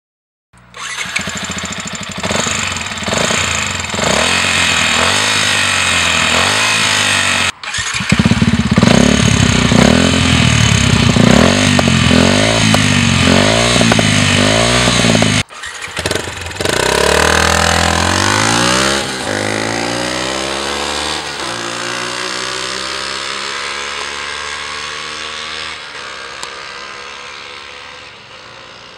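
Yamaha WR 125's single-cylinder four-stroke engine through a Radical Racing half-carbon slip-on exhaust, in several short clips: revved in repeated quick blips, then revving up for a few seconds before its pitch falls and the sound fades away near the end.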